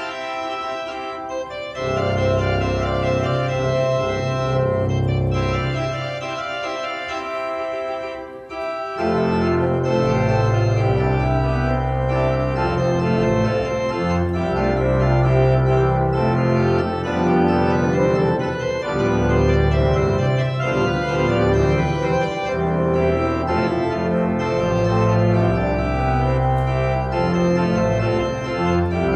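Organ music playing slow, held chords over a bass line; it grows fuller and louder about nine seconds in.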